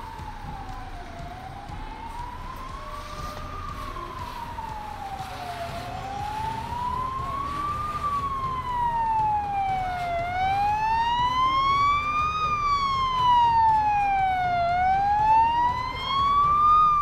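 Fire engine's wailing siren, rising and falling slowly about every four and a half seconds, growing louder as it approaches.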